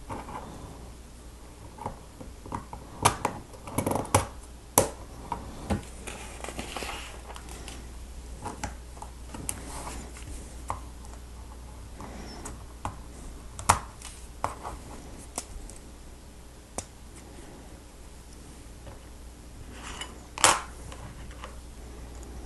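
Plastic Lego Technic pieces clicking and clattering as they are handled, with irregular sharp clicks and knocks, the loudest cluster a few seconds in and single louder knocks about two-thirds of the way through and near the end. A steady low hum underneath.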